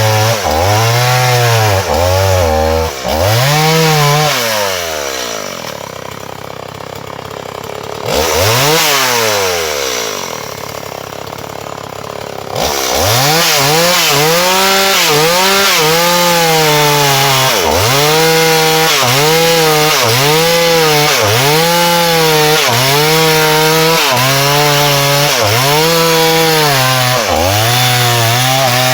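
Two-stroke chainsaw cutting into a hard, dry matataúba log, its engine pitch dipping under load and recovering about once a second. Twice in the middle it drops back to idle for a few seconds, with a short rev between.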